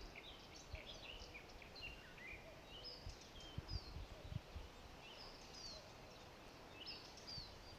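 Several small birds singing and calling faintly, with quick chirps and short downward-slurred whistles overlapping throughout. A few brief low thumps come about halfway through.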